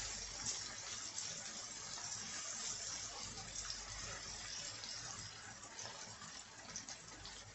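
Chopped tomatoes, bell peppers and onion sizzling in a nonstick frying pan over high heat, a steady hiss, while a silicone spatula stirs them.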